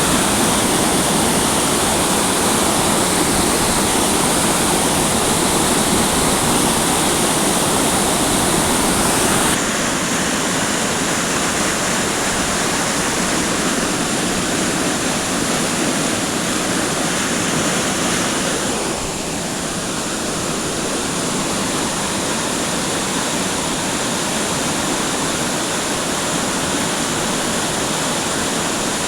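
Flood-swollen mountain stream rushing in a steady, loud torrent. The level drops slightly twice, about a third of the way in and about two-thirds in.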